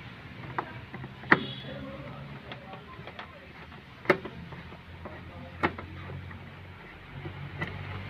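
A screwdriver clicking against the cross-head screw and trim of a car's inside door handle while the screw is undone: five or so sharp, irregular ticks, the loudest about a second in, over a faint steady low hum.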